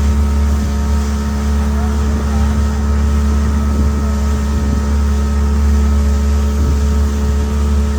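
Steady engine hum running at one constant speed, with a deep low drone and several held tones above it.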